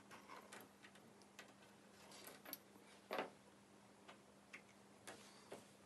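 Faint scattered taps and scratches of tailor's chalk and a steel ruler working over trouser fabric on a table, with one louder scrape about three seconds in, over a faint steady low hum.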